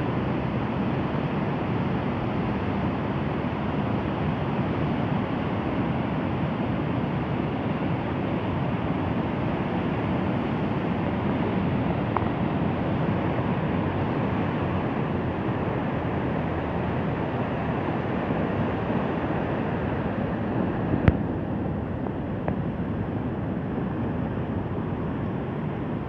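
Rough sea: a steady rush of heavy surf mixed with wind buffeting the microphone. One sharp click about three-quarters of the way through.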